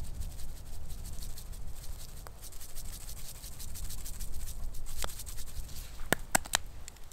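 Knife cutting raw grouse breast into pieces: a steady rubbing and scraping, with a few sharp clicks about six seconds in.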